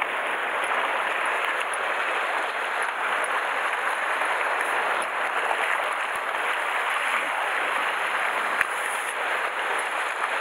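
Sea water washing and splashing over shoreline rocks: a steady, even hiss, with a few faint clicks scattered through it.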